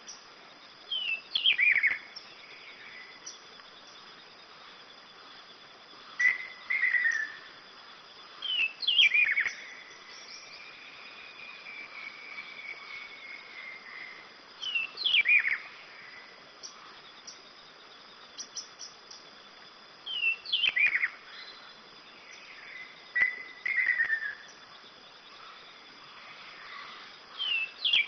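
A bird singing short phrases of quick notes that slide downward, repeated about every three to six seconds, about seven times. Between phrases there is a long, faint, wavering whistle and a faint steady high hum.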